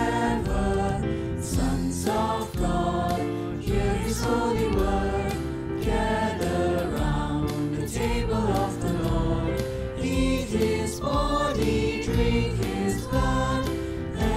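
Choir singing a hymn with accompaniment, moving from the end of a verse into the chorus.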